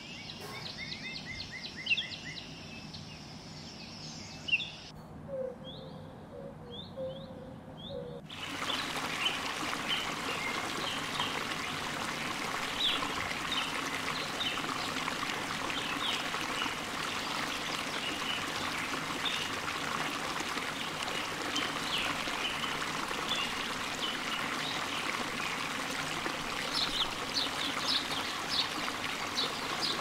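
Small songbirds chirping and trilling in short, quick notes. The sound cuts abruptly about 5 s and 8 s in, and after that many overlapping chirps sit over a steady rushing noise.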